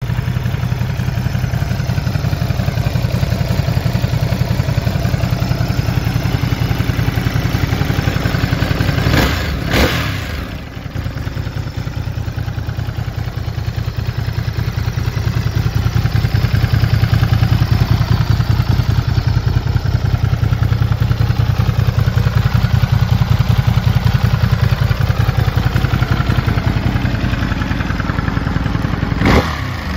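Ducati Monster Plus's 937 cc Testastretta V-twin idling with a rapid, even beat through the stock exhaust. It is blipped briefly about nine seconds in and again near the end, where the revs fall back to idle.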